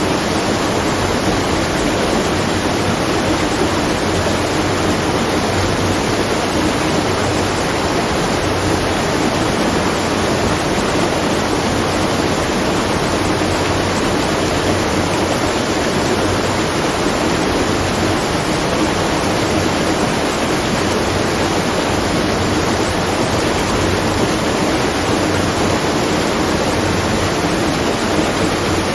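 Steady, unbroken rush of water falling and splashing at a watermill, with a faint low hum underneath.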